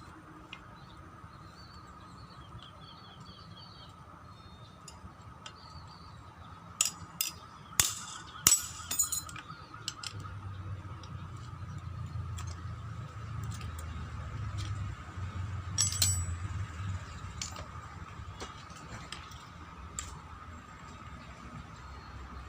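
Scattered sharp metallic clinks and knocks of tools and parts being handled during the teardown of a brush cutter, with a cluster of them about seven to nine seconds in and another around sixteen seconds. Birds chirp faintly near the start.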